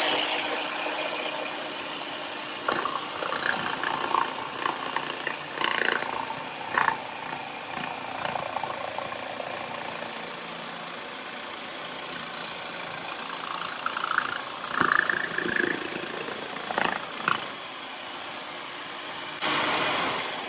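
Jigsaw clamped upside down in a bench vise, running steadily while wood is fed into the blade for a curved cut, with scattered scraping and knocks. It swells briefly near the end and then stops.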